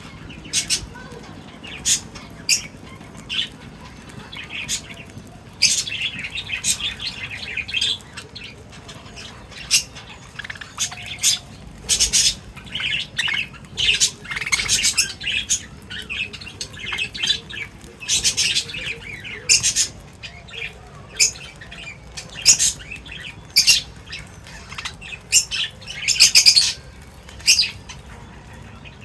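Small pet birds chirping and squawking: a busy run of short, shrill calls, with a few longer stretches of chatter.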